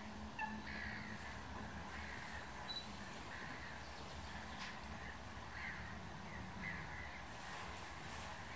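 Birds calling in the background: short, harsh, crow-like calls repeated at irregular intervals, over a faint low hum.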